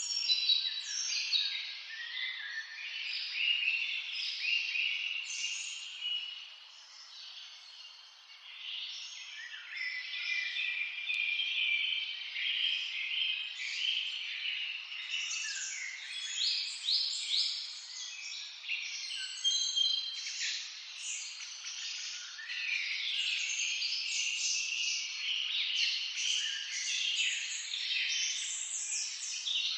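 Several songbirds singing at once in a forest chorus: overlapping quick chirps, trills and whistled phrases. The chorus thins out briefly about six seconds in, then fills again.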